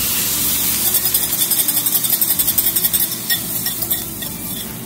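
Beaten eggs poured into a hot pan of sausage and vegetables frying in olive oil, sizzling, with a rapid crackling pulse for the first few seconds that eases off toward the end.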